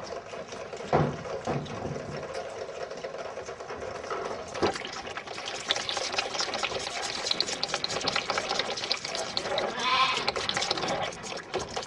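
Dairy calves bawling, one clear call near the end, over a steady clatter of barn noise with a few sharp knocks.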